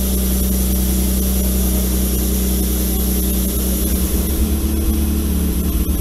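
Toyota 2000GT straight-six engine running steadily, its low note turning uneven about four seconds in.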